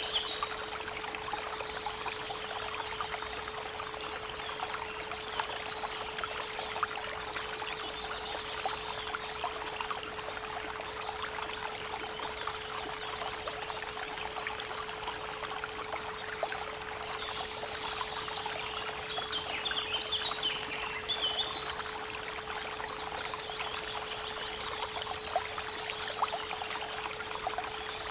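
Creek water babbling steadily, with birds chirping now and then, over a steady 432 Hz pure tone.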